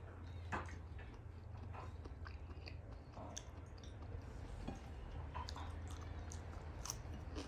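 A person chewing and biting food close to the microphone, with scattered short wet mouth clicks.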